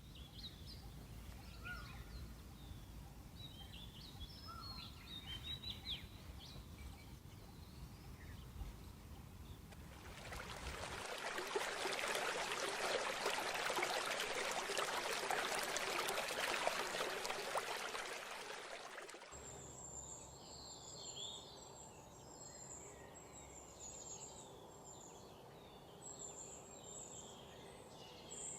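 Songbirds chirping over a low outdoor rumble, then a loud, even rushing noise like running water that swells in about ten seconds in and cuts off about nine seconds later, followed by more birdsong with high, rapidly repeated calls.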